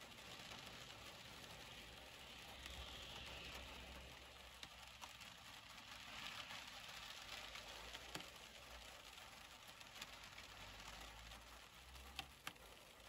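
Faint, steady rain heard from inside a parked car, with a few sharp taps of drops on the glass in the second half.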